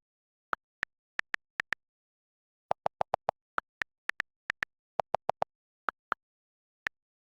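Morse code played as electronic beeps: about two dozen very short blips in irregular groups, some lower and some higher in pitch, with dead silence between them.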